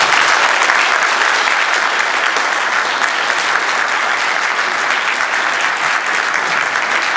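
A large audience applauding, dense and steady clapping that holds at an even level.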